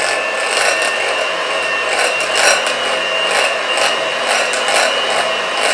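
Electric hand mixer running at low speed, a steady motor whine with the beaters scraping and knocking against a glass bowl as they beat cream cheese and icing sugar.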